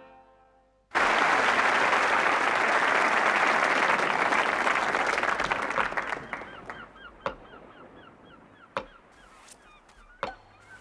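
Studio audience applause that starts suddenly about a second in and fades after about five seconds. It is followed by faint, rapidly repeated short chirps and a few sharp knocks.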